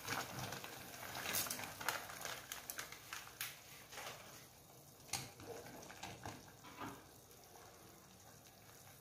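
Faint bubbling of water boiling in a stainless steel pot, with scattered light clicks and taps, more of them in the first half.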